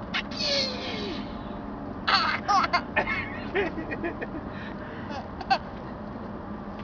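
Baby laughing in short bursts of high-pitched squeals and giggles, set off by the father's sneezing. A breathy burst of noise comes about half a second in.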